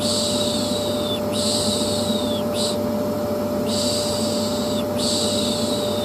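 Vacuum cleaner running steadily under a repeated 'piş piş' shushing hiss, each shush about a second long and falling away at its end, three in a row then a brief pause, looped as soothing white noise for a colicky baby.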